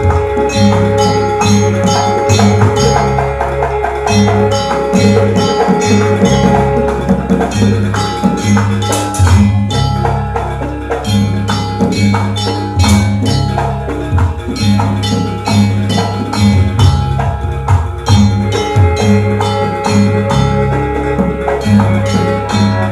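Traditional Banyuwangi dance music with no singing: rapid, evenly spaced metallic percussion strikes over a stepping bass line and sustained melodic tones.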